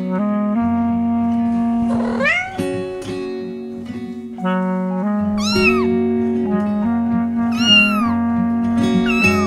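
A cat meowing four times, each a short call that rises and then falls in pitch, over background music of sustained chords.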